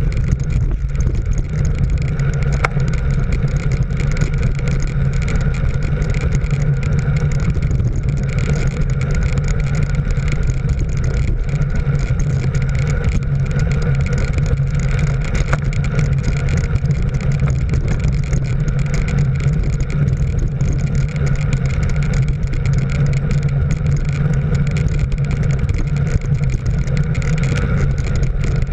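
Steady drone of a motor vehicle's engine at cruising speed, mixed with wind rumbling on the microphone.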